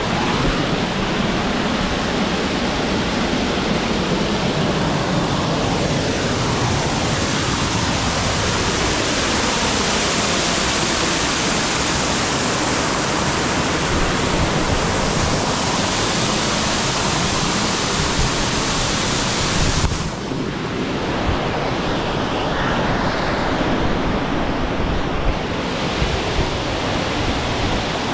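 Waterfall on the Gooseberry River, a loud, steady rush of falling water. Its high hiss turns duller about twenty seconds in.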